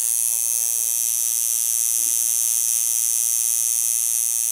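Electric tattoo machine buzzing steadily as its needle works on the skin of a forearm.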